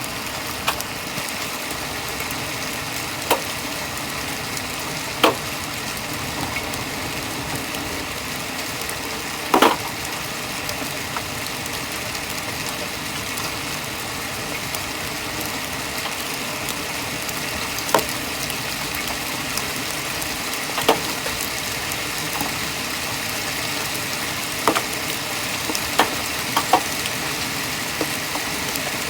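Hail coming down: a steady hiss of countless small impacts, with a sharper, louder hit of a hailstone striking close by every few seconds.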